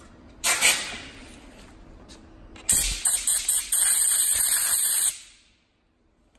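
Compressed-air blow gun hissing in short blasts into the threaded idle-screw hole of a TPI throttle body, clearing out old Loctite: one burst, then several quick bursts, then a longer steady blast that stops abruptly.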